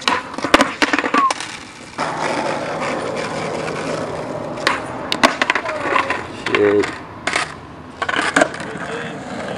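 Skateboard tricks on asphalt: sharp clacks of the board popping, landing and clattering on the pavement, with a cluster in the first second and a half, more around the middle and again near the end. Between the clacks the wheels rumble steadily as the board rolls on the asphalt.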